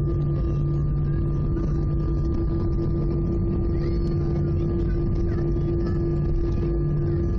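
Airbus A319's CFM56 jet engines at taxi power, heard from inside the cabin: a steady drone of low rumble with a few constant hums and a faint higher whine.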